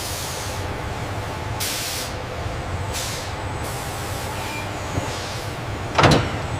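Steady workshop machinery rumble with several short bursts of air hiss, and a louder brief sound near the end.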